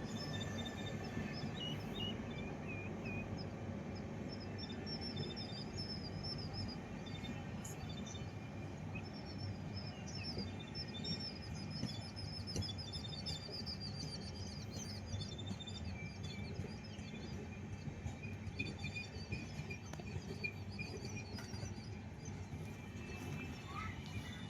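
Small birds chirping and trilling over a steady low background rumble.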